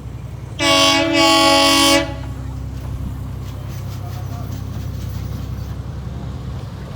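Miniature railway locomotive sounding its horn: a short toot followed straight away by a longer blast about a second long. Under it the locomotive's engine runs with a steady low rumble.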